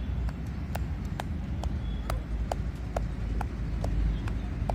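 Hand tapping the body under the armpit in a steady rhythm, about two light taps a second, over a steady low background rumble.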